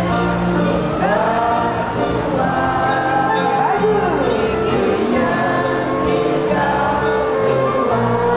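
Keroncong band playing, with voices singing over held notes and a line of steady low bass notes.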